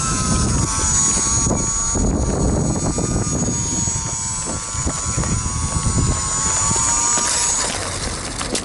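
E-flite UMX Beast 3D ultra-micro RC airplane's electric motor and propeller whining, its pitch shifting slightly with the throttle, over wind buffeting the microphone. The whine stops near the end.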